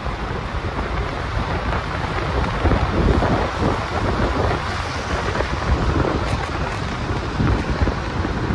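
Wind buffeting the microphone of a moving vehicle on the road: a loud, gusty, rumbling noise that surges and eases.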